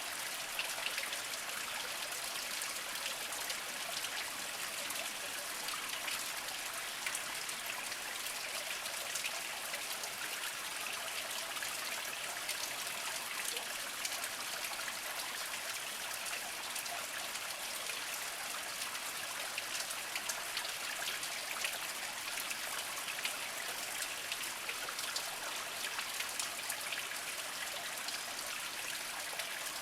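Small mountain spring trickling and splashing over mossy rocks: a steady patter of water with many small drips and splashes.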